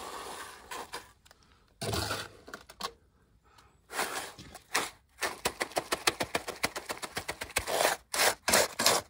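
A shovel scraping and dumping wet concrete into a timber form, then patting it down with the blade in a quick run of short strokes, several a second, over the second half.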